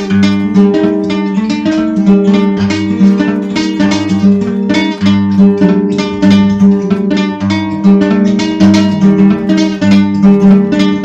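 Dark folk music: rapidly plucked acoustic guitar over a sustained low drone and a bass line.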